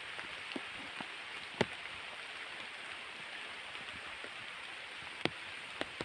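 Heavy rain falling on forest foliage: a steady hiss with a few sharp ticks.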